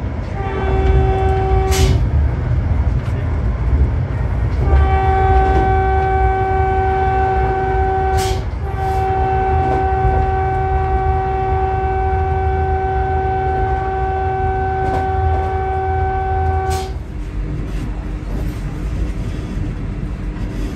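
Train horn sounding one steady note three times: a short blast, then a long one, then a longer one of about eight seconds. Under it is the continuous low rumble of the train running.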